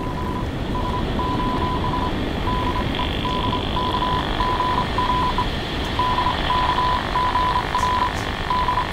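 Radio transmitter sending an SOS in Morse code: steady beeps at one pitch, in short and long pulses, over a constant hiss.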